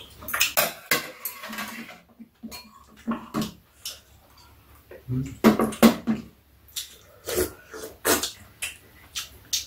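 People eating at a table: spoons and chopsticks clicking and tapping against bowls, with slurps of soup from a spoon and chewing noises.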